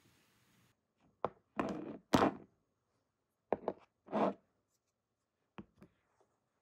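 Skincare bottles and jars being set down one after another on a tabletop: a series of knocks and clunks, a few of them short and drawn out into a brief scrape, coming in clusters about a second apart.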